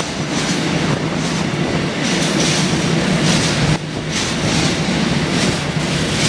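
Intermodal freight train wagons rolling past through the station without stopping: a steady, loud rumble of wheels with a repeated clickety-clack as the wheelsets pass over the track.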